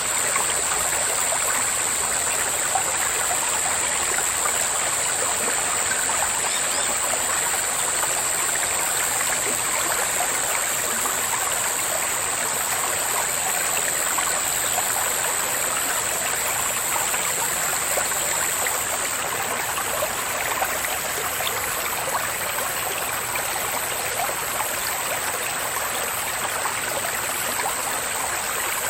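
Cicadas droning in a continuous high-pitched buzz that eases slightly about two-thirds of the way through, with faint bird chirps scattered underneath.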